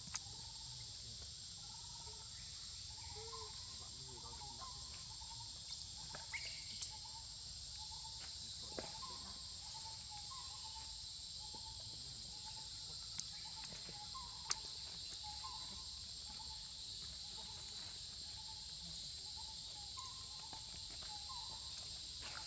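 Steady high-pitched chorus of insects, with faint short chirps about once a second and a few sharp clicks.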